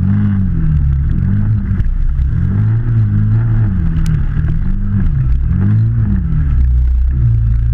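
Can-Am Maverick side-by-side's engine revving up and down about once a second under short throttle pulses, settling to a steadier pitch near the end.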